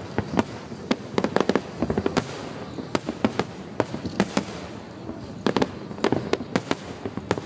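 Aerial firework shells bursting overhead: many sharp bangs and cracks at irregular intervals, often several in quick succession.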